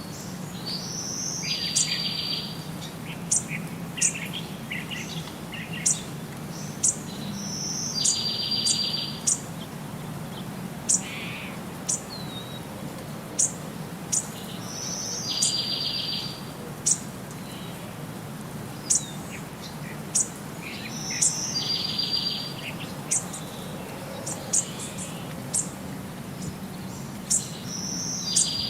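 Bird song: a short high note followed by a buzzy trill about a second long, repeated about every six to seven seconds, with sharp high chirps between the phrases.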